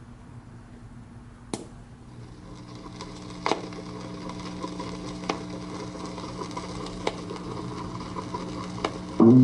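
A portable suitcase record player's stylus is lowered onto a spinning vinyl LP. There is a click as the tonearm is handled, then a louder click as the needle drops about three and a half seconds in. Soft surface hiss follows, with a light pop about every second and three quarters as the record turns, until the record's music comes in loudly with bass and guitar near the end.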